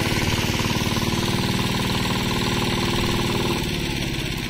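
A small engine running steadily with a rapid knocking beat, easing off a little about three and a half seconds in.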